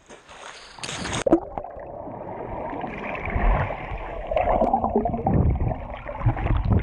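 A splash about a second in, then muffled gurgling and rushing water with the microphone underwater, as a swimmer moves beside it.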